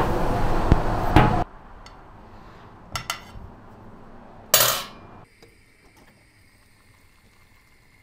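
A metal fork clinking and scraping on a ceramic plate, with a few small clicks about three seconds in and one loud, sharp scrape a little past halfway. Before that, a loud rushing noise cuts off suddenly about a second and a half in.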